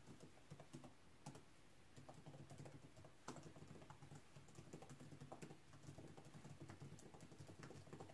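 Fingers typing on a laptop keyboard: a quick, irregular run of faint keystroke clicks.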